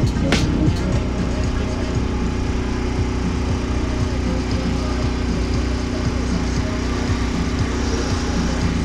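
A steady low drone like an engine idling, with a sharp click just after the start.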